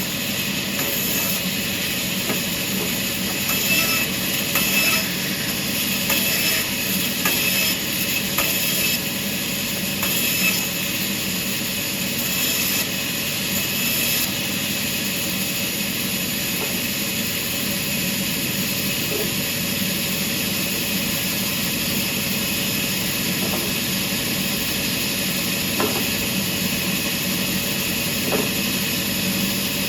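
Sawmill machinery running with a steady hum and noise. Through roughly the first half, irregular hissing surges come and go, then it settles to a steadier run.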